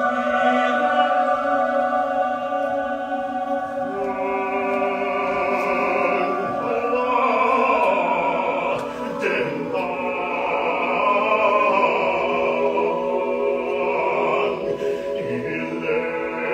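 Large mixed choir singing long-held chords in several parts, with higher voices moving over the sustained lower notes midway through.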